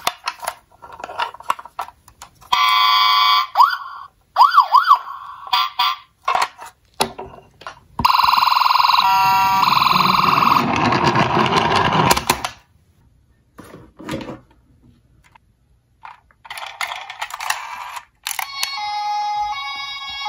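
Toy ambulances' electronic sound modules playing siren effects: a steady electronic tone, a wailing siren that rises and falls a few times, and a longer siren burst, with clicks and rattles of the toy being handled and rolled across a table. Near the end a second toy ambulance starts its own electronic siren sound.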